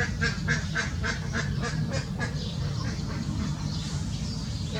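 A bird calling in a fast run of short, harsh notes, about four a second, that stops a little over two seconds in, over a steady low rumble.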